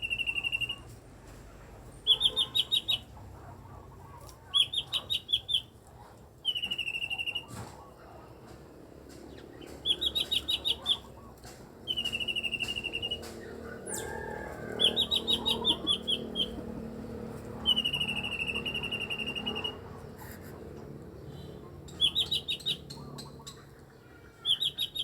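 Cucak ijo mini (lesser green leafbird) singing its unusual song: short high phrases about every two seconds, alternating a fast rattling trill with a longer even buzzy note.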